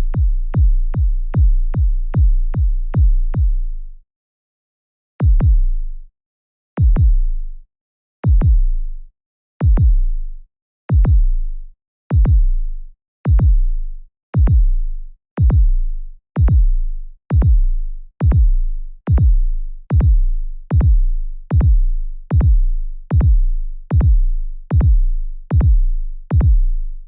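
Deep synthesized bass booms used as a suspense effect, each a sharp click dropping into a low thud that fades away. A fast run of about three a second stops about four seconds in; after a pause they return about one and a half seconds apart and gradually speed up to almost one a second.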